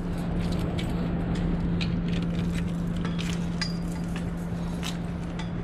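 City street noise with a steady low hum and a few light clicks and clinks.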